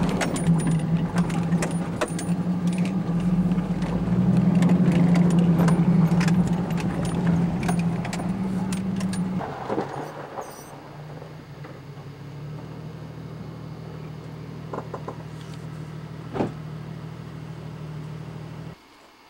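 Jeep Wrangler's 4.0-litre straight-six engine running on a rough dirt track, with many sharp rattles and clicks from the body and loose gravel. About halfway through it drops to a quieter, steady low running note, which stops abruptly near the end.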